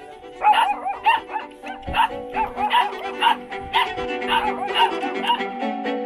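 A puppy whimpering and yipping in strings of short, high cries, over background music.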